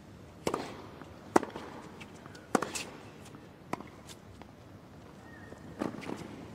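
Tennis ball struck by rackets and bouncing on a hard court during a rally: a series of sharp pops, with the loudest strikes about a second and a half and two and a half seconds in, and fainter ticks in between.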